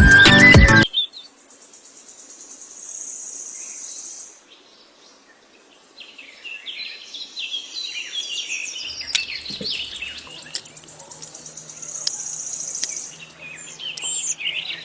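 Music cutting off in the first second, then an insect's steady high-pitched buzz and many short bird chirps.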